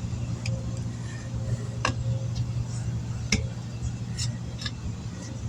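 Sharp metal clicks and taps, five or so spread irregularly, from hand tools against the wheel rim while a low-profile tire is worked onto it by hand. A steady low mechanical hum runs underneath.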